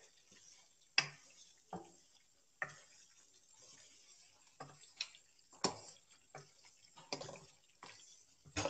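A cooking spoon stirring chicken in cream in a karahi, knocking and scraping against the pan at irregular intervals of about a second, over a faint steady sizzle from the pan.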